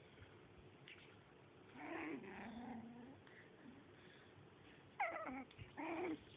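A dog vocalizing while attacking in rough play: a faint, low, wavering growl about two seconds in, then a few short, higher-pitched cries near the end.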